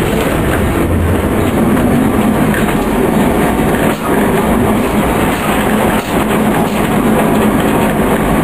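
Vintage wooden Lisbon tram running along its rails, heard from inside the car: a loud, steady noise of the car body and its wheels on the track.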